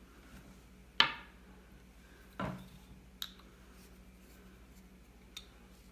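A few sharp metallic clicks and clinks as fired brass cartridge cases and a primer pocket cleaning tool are handled. The loudest comes about a second in and rings briefly; fainter ones follow.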